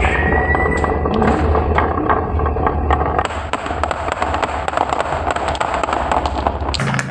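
Glass marbles rolling down a wooden wavy-groove marble track, clacking against each other and the wood, then dropping into a plastic plate: a dense, rapid clatter of clicks over a low rolling rumble.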